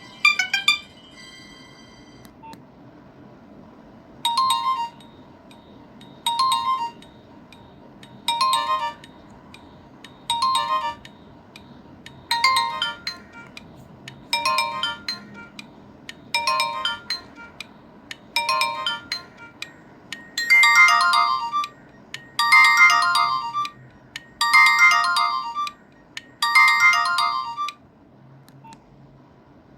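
Nokia 1661 mobile phone playing a ringtone: a short phrase of electronic beeping notes repeated about every two seconds, a dozen times, and louder and fuller over the last four repeats. A brief burst of notes comes at the very start.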